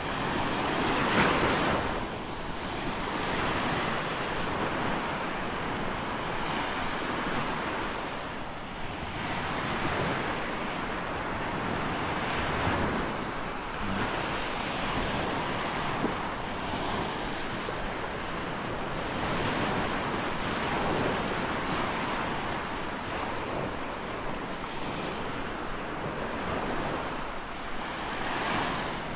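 Small Gulf of Mexico waves breaking and washing up a sandy beach. The surf rises and falls in swells every few seconds, with wind on the microphone.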